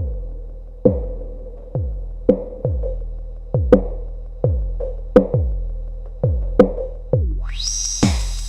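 Electronic drum pattern from an Endorphin.es Queen of Pentacles Eurorack module: deep kicks that fall in pitch, about one every three-quarters of a second, with sharp clicky hits in between. Near the end a rising sweep leads into a bright hissy layer over the beat.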